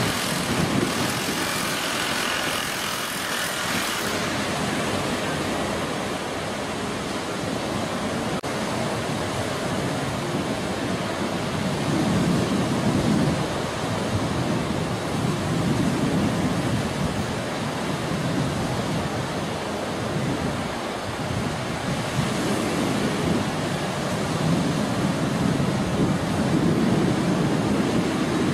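Ocean surf breaking and washing in steadily, with wind buffeting the microphone in gusts. A brighter hiss of breaking whitewater comes in the first few seconds.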